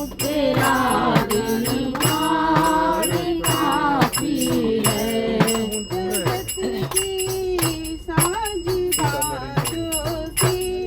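Devotional bhajan singing, with hand percussion striking a steady beat throughout; the singing voice is strongest in the first half.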